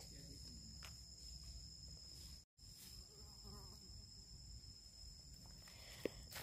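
Faint, steady high-pitched insect drone, two thin tones held throughout, cutting out completely for a moment about two and a half seconds in.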